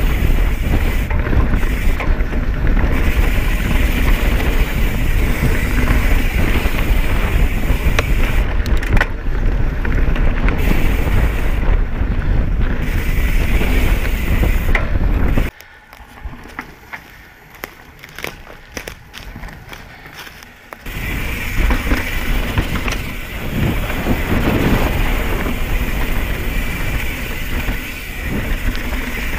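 Mountain bike rolling fast over a dirt singletrack trail, with tyre and trail rattle and wind rushing over the camera's microphone. The noise drops sharply for about five seconds past the middle, then comes back.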